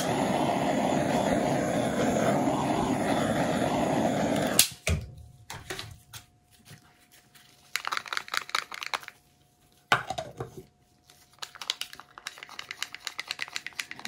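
Small handheld torch lit with a click and burning with a steady hiss for about four and a half seconds, then shut off with a click. After a pause come short runs of quick clicking and scraping from a stir stick against a jar of paint.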